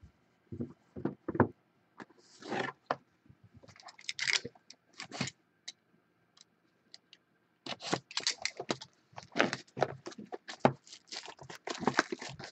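Shrink-wrapped cardboard Panini Prizm hobby box being handled on a wooden tabletop: a few taps and scrapes and a short swish as it is slid along, then a rapid run of rustling and clattering for the last five seconds as it is lifted and turned in the hands.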